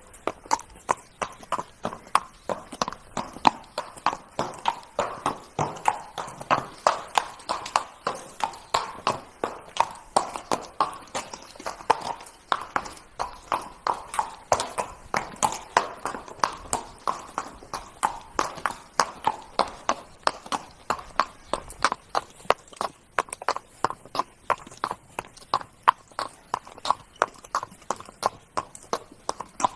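Horse's hooves trotting: a steady, even clip-clop of sharp hoof strikes, about two to three a second.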